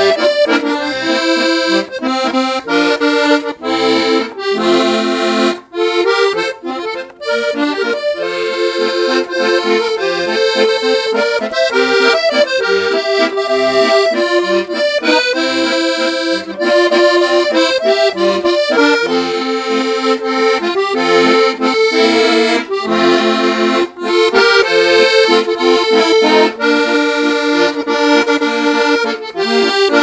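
Parrot Flamingo piano accordion playing a tune with its musette sound, from two middle reeds per treble note.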